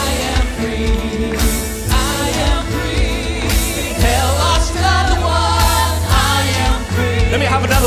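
Live worship band playing a gospel song, with guitars, keyboard and drums keeping a steady beat under a low bass line. Several voices sing the melody, coming in more strongly about halfway through.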